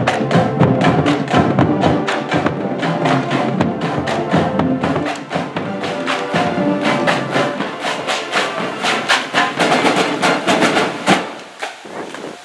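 High school marching band playing on the march: a drumline beating out a fast rhythm of sharp strikes under sustained horn tones. The music stops with a final hit about eleven seconds in, and it goes quieter after that.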